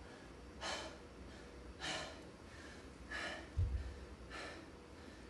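A man breathing hard with the effort of single-arm dumbbell rows: four short, sharp exhalations about a second and a quarter apart. There is a soft low thud about two-thirds of the way through.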